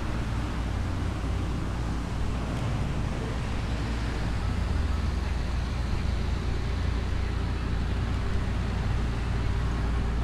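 Steady low rumble of road traffic in the city, with an even background hiss and no distinct events.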